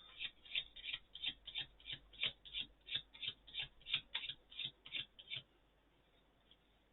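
Pokémon trading cards being flicked off a stack one at a time, a quick even run of soft card slaps about three a second that stops about five and a half seconds in: the deck's basic Water Energy cards being counted through.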